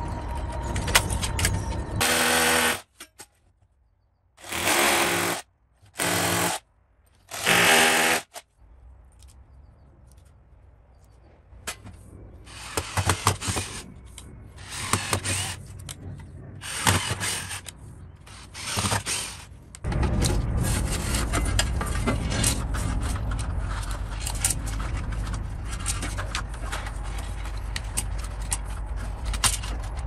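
Cordless drill run in short bursts, four long ones and then several shorter ones, fixing metal cable trunking to a brick wall. After that comes a steady low rumble with light clicks.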